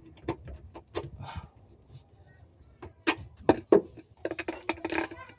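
Irregular sharp knocks and clicks of hand tools and parts being handled, a few at first and then more frequent and closer together in the last couple of seconds.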